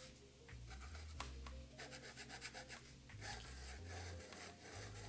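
Faint scratching of a Platinum 3776 fountain pen's soft fine nib on paper, in quick irregular writing strokes and scribbles. The nib is scratchier than the writer is used to.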